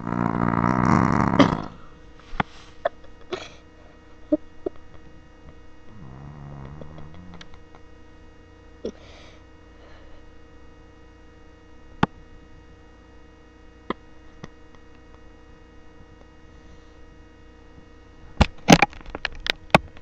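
A sleeping dog snoring with a growly rumble: a loud snore at the very start and a softer, lower one about six seconds in. Sharp clicks here and there, several close together near the end, over a steady electrical hum.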